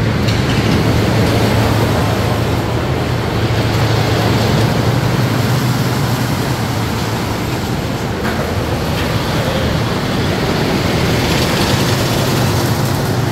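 Miniature amusement-park train running, heard from a rear passenger car: a steady low drone with a rolling rumble.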